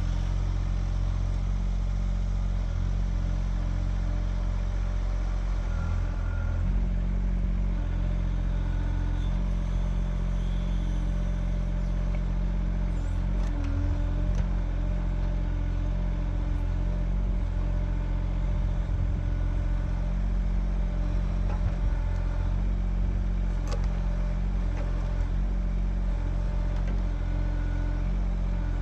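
Kymron XH20D mini-excavator's engine running steadily while it works at digging out a tree stump, with a few brief clicks.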